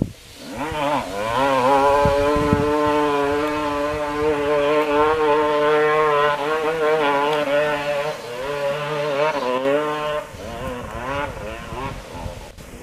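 Dirt bike engine held at high revs as it climbs a steep coal-waste hill, its pitch wavering up and down with the throttle and traction. It drops away about ten seconds in, leaving a fainter rumble and rustle.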